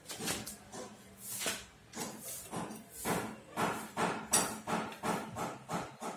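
Hammer tapping on metal at a motorcycle's front wheel hub during a wheel bearing change: a quick, irregular run of sharp knocks, about two or three a second, some with a short ring.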